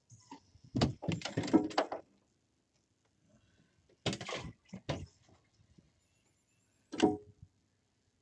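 Knocks and clattering on a fishing boat: a dense run of knocks about a second in, then a few single knocks, the last sharp one near the end.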